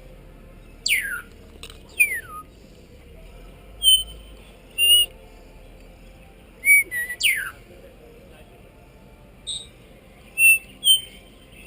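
African grey parrot whistling: about ten separate calls, some long whistles sliding steeply down in pitch, the rest short clear notes.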